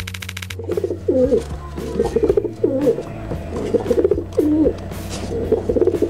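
A pigeon cooing, repeating its phrase four times about a second and a half apart. A short buzzy transition sting sounds at the very start, and quiet background music runs underneath.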